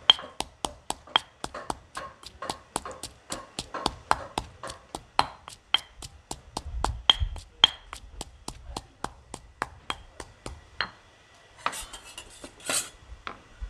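Stone pestle pounding red chilies in a granite mortar, sharp even strikes at about four a second that stop near the end. Then two brief scrapes, a metal spoon in a stainless steel bowl.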